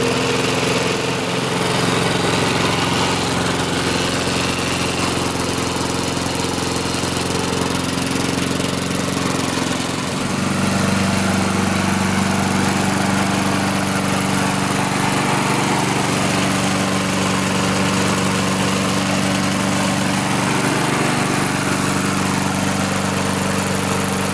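Briggs & Stratton engine on a Rickel push lawn mower running steadily, its tone shifting slightly about ten seconds in. It is running well after carburetor work.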